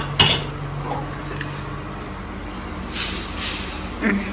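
Two sharp knocks as a non-stick kadai is handled at the start. About three seconds in there are soft hissing rushes of roasted spice grains sliding out of the pan into a steel pot, over a steady low hum.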